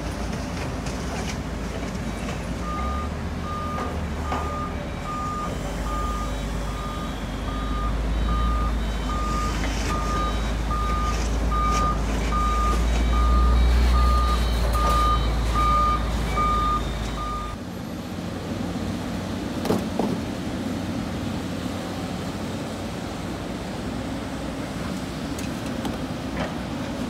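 Heavy diesel machinery at a sand pit, an excavator working beside dump trucks, running with a deep rumble. A backup alarm beeps steadily, about three beeps every two seconds, through the first two-thirds. Then the alarm and the loudest rumble stop abruptly, leaving a quieter engine running, with a single knock shortly after.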